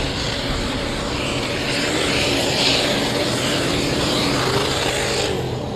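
Engine of a 950 kg modified tractor puller running flat out at extremely high revs as it drags the weight sled. The loud, hissing engine noise drops off sharply near the end.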